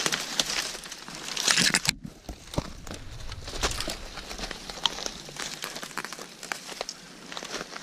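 Dry brush and twigs scraping and snapping against clothing and the body-worn camera, with footsteps crunching through thin snow, as someone pushes through a thicket. The sound cuts out for a moment about two seconds in.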